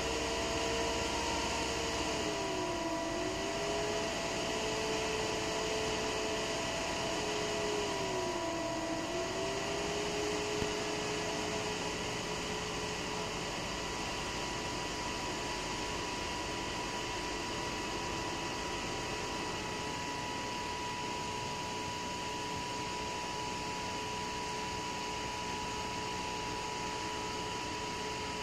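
Several small computer fans spinning the mirrors of a laser spirograph, giving a steady whirring hum with hiss and a few held tones. The main fan tone twice dips in pitch and comes back up, a fan slowing and speeding up again as its speed is changed.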